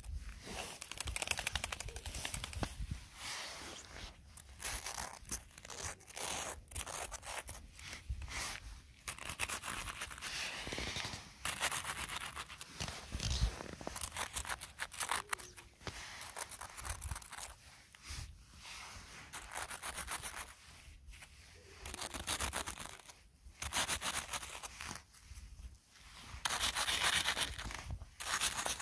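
Footsteps crunching in snow, one crunchy step after another with a few short pauses.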